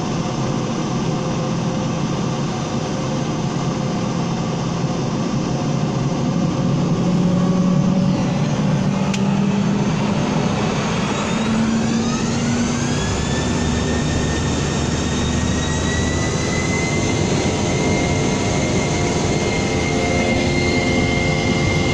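Boeing 717-200's Rolls-Royce BR715 turbofan engines heard from inside the cabin, running steadily at first. About ten seconds in, a whine rises and then settles into a steady high tone as the engines spool up under more thrust.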